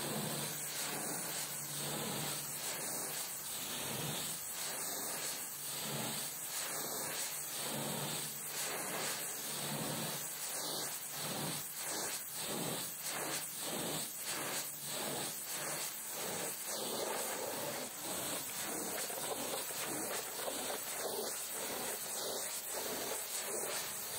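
Pressure-washer jet spraying water onto a truck: a steady hiss with a faint regular pulsing in the middle.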